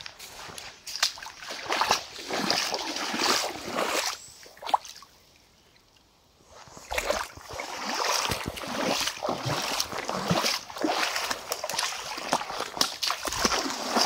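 Footsteps splashing and sloshing through a shallow, stony creek in an uneven rhythm. They stop for about a second and a half around five seconds in, then go on.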